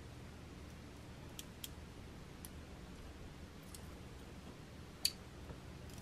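A few faint, sharp clicks of small jewelry pliers and metal findings being handled, with one louder click about five seconds in, over a steady low hum.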